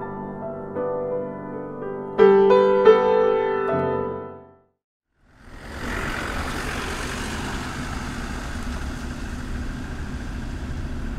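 Piano music plays and cuts off about four and a half seconds in. After a short silence, a steady rushing noise of a car running fades in and holds.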